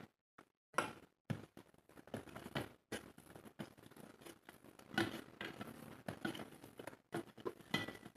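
Fingers mixing rice on a stainless-steel plate, making irregular short, soft squishing sounds.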